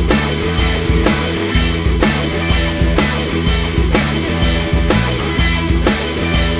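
Rock music with drums and guitar at a steady beat of about two strokes a second.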